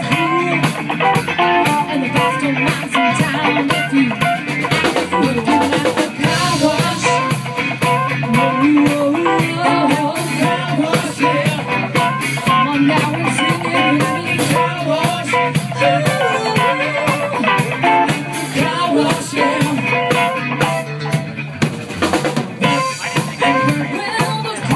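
Live band playing a funk-rock song: a drum kit keeping a steady beat with rimshots, two electric guitars, and a woman singing into a microphone.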